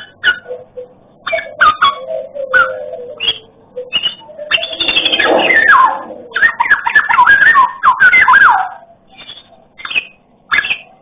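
Black-naped oriole (kepodang emas) singing in varied whistled phrases. Short separate notes come in the first few seconds. From about four and a half to nine seconds in there is a long run of rapid, warbling notes with sliding whistles, then a few short calls near the end.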